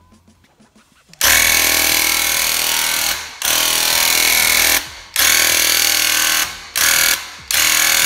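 Graco TrueCoat 360 VSP handheld airless paint sprayer's piston pump buzzing loudly while the trigger is held, in five bursts of one to two seconds, starting about a second in, with short breaks between passes.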